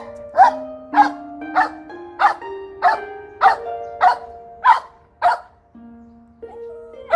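Background music whose beat is made of dog barks: nine barks about 0.6 s apart over held notes that step upward in pitch. The barks drop out for a pause near the end.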